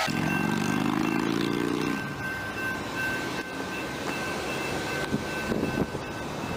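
Freight train's hopper cars rolling past with a steady rumble and a thin, steady high-pitched squeal. A low hum sits under it for the first two seconds.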